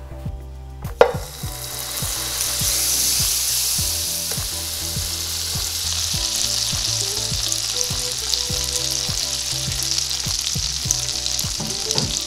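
A pat of butter sizzling as it melts and foams in a hot nonstick frying pan, a steady, dense sizzle. It starts suddenly about a second in, right after a short knock.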